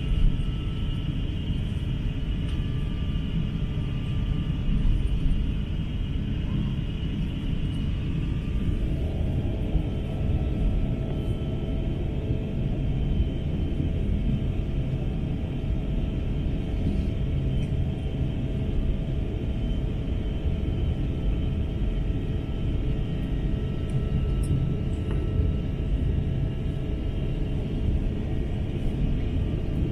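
Airbus A350-900 cabin noise heard from inside the cabin: a steady, deep rumble from its Rolls-Royce Trent XWB engines and airflow, with a few thin, even engine whines above it, one joining about nine seconds in.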